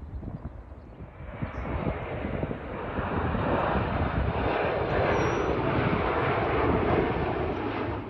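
Embraer E175 regional jet's twin turbofan engines on final approach, passing overhead: the jet noise swells from about a second in and holds loud, then cuts off suddenly at the end.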